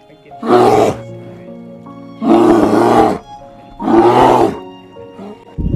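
Brown bear roaring: three loud roars about one and a half seconds apart, the middle one the longest, over background music.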